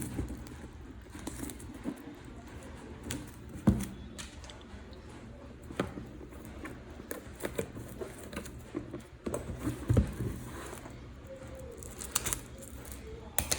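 Cardboard trading-card box being handled and opened: scattered taps, scrapes and clicks, with a sharper knock about 4 s in and another about 10 s in.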